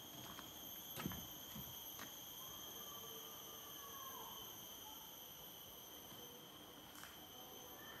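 Steady, high-pitched drone of rainforest insects, with a few soft knocks, the loudest about a second in.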